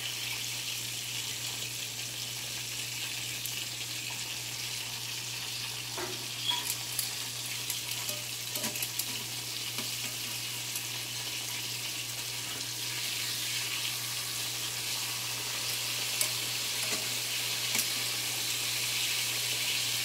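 Breaded catfish pieces frying in hot grease in a cast iron skillet: a steady sizzle, with scattered light clicks twice in the middle and near the end as tongs turn the pieces.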